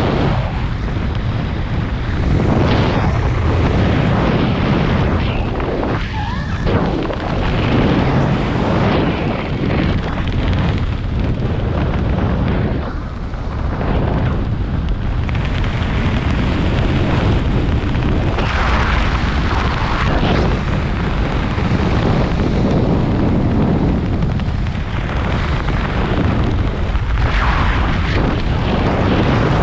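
Wind rushing over and buffeting the camera's microphone as a skydiver descends under an open parachute. It is a loud, steady noise that swells and dips, with a brief dip about thirteen seconds in.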